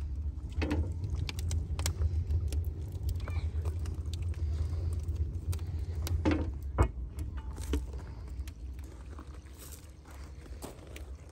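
The metal lid of a wood-fired hot tub's stove being handled and lifted, giving a few knocks and clinks, with scattered crackle-like clicks over a steady low rumble that fades after about eight seconds.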